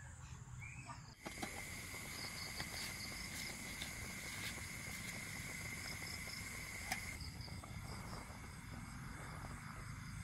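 Insects calling: a steady high-pitched buzz that starts about a second in and stops about seven seconds in, with a faster pulsing chirp above it and a low, even rumble underneath.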